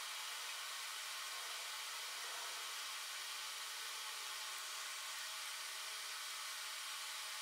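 Steady, even hiss with nothing else happening: background room tone and recording noise.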